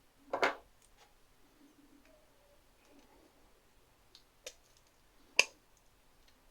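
A few sharp clicks and knocks of small objects being handled, as in unboxing: one just after the start, a lighter pair around four and a half seconds in, and the loudest about five and a half seconds in, against a quiet room.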